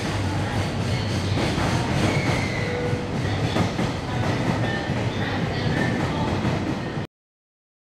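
Container freight train wagons rolling past, a steady rumble and clatter of wheels on rail. The sound stops abruptly about seven seconds in.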